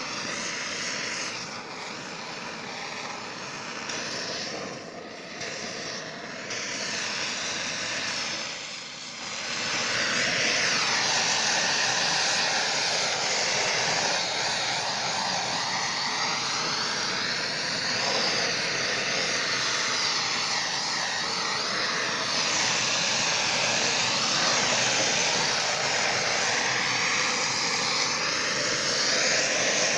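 Blowtorch flame burning with a steady rushing hiss as it scorches the wood of a beehive box to clean it. It dips briefly a couple of times, then grows louder about a third of the way in.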